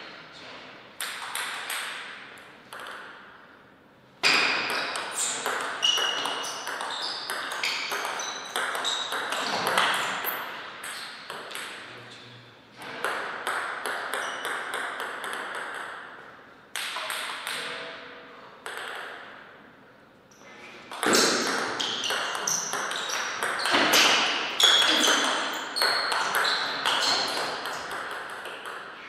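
Table tennis rallies: the ball clicks off the paddles and bounces on the table in quick back-and-forth strokes. There are short quiet gaps between points.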